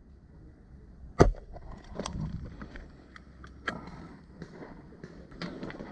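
Rustling and scattered clicks from moving through brush and dry leaves while handling a rifle, with one loud, sharp knock about a second in.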